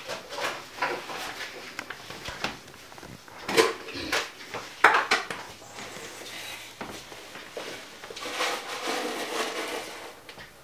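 Kitchen handling clatter: bowls and a spoon knocked and set down on the counter, with two louder knocks about three and a half and five seconds in, and a longer rustling stretch near the end.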